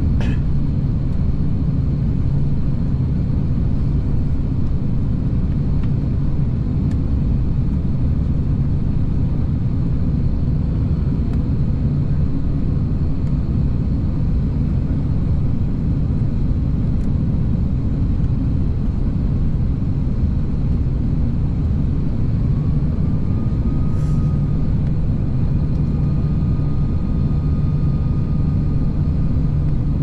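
Steady low rumble of an Airbus A330-300 heard from inside the passenger cabin, the drone of its engines and airflow. A faint steady tone slides in about three-quarters of the way through, and there is a sharp click at the start and another near the end.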